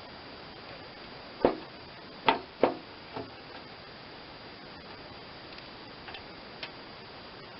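Sharp knocks and clinks of metal parts and bolts being handled while a spindle assembly is fitted to a mower deck: four knocks in quick succession from about one and a half seconds in, then a few faint ticks.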